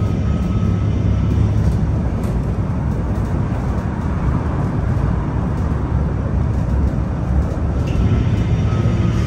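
Steady low rumble of engine and road noise, heard from inside a moving vehicle.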